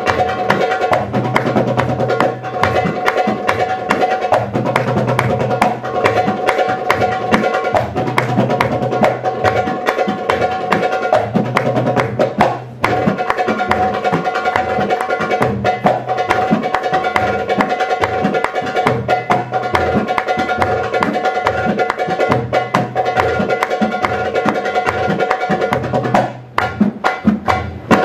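Hand-drum solo: rapid, dense drum strokes over a sustained backing drone, with a brief drop about twelve seconds in and a run of sharp accents with short gaps near the end.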